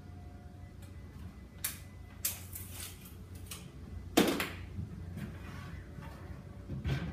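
Scattered knocks and clatter of a length of timber and tools being handled at a workbench, with the loudest knock about four seconds in and another near the end; no power tool is running.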